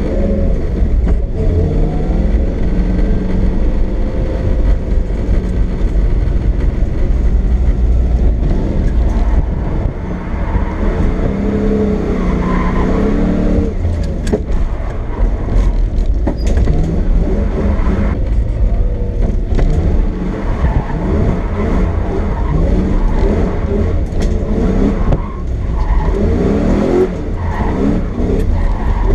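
Lexus SC400's V8 engine revving up and falling back again and again during drift runs on wet pavement, over a heavy low rumble.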